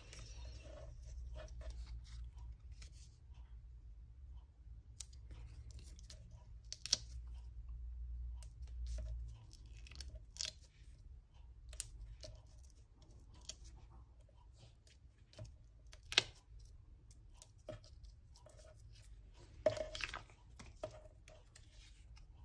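Hands peeling small foam adhesive dots off their backing sheet and pressing them onto a die-cut paper heart: scattered small clicks and crackles of paper and backing, a few sharper ones among them, over a faint low hum.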